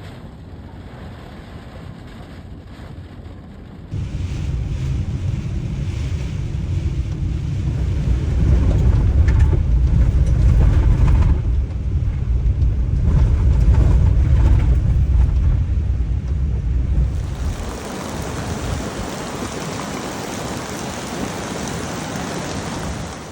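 Floodwater and debris flow rushing, a loud steady noise with a heavy low rumble from about four seconds in, turning to a higher, even hiss in the last few seconds.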